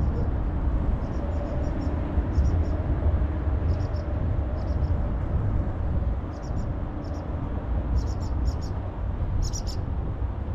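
Wind buffeting the microphone in a steady low rumble, with a small bird's short high chirps coming in quick groups of two to four, every second or so.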